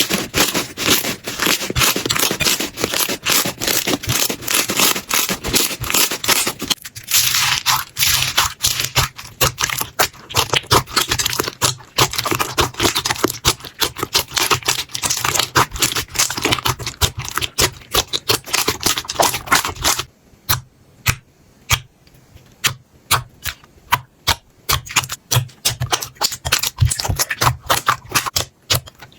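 Slime being squeezed, pressed and stretched by hand, giving a dense run of crackling, clicking and popping as air pockets burst. The texture changes about seven seconds in, and about twenty seconds in it thins to separate sharp pops with short quiet gaps between them.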